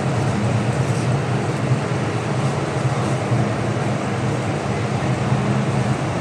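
Steady hum of an MTR M-train standing at the platform: its air-conditioning and on-board equipment running with a constant low drone and even noise, with no change in pitch.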